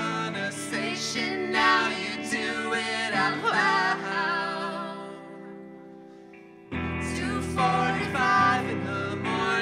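Live song on electric guitar with a woman and a man singing together. About halfway a held chord rings out and fades, then guitar and voices come back in loudly about two-thirds of the way through.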